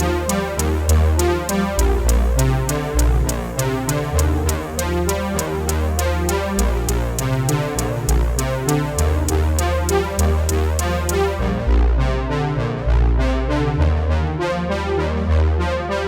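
Background music: synthesizer and keyboard over a steady electronic drum beat, with a sustained bass line.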